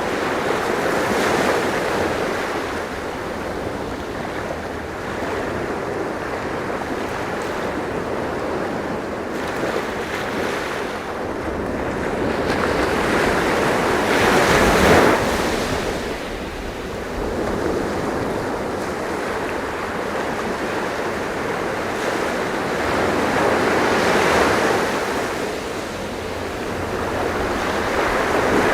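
Sea surf: waves washing in and drawing back. Each swell rises and fades over several seconds, and the loudest comes about halfway through.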